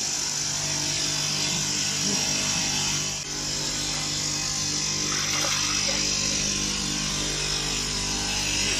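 Horizontal glass beveling machine running: its row of grinding-wheel motors gives a steady hum under a constant hiss as a glass sheet's edge is ground.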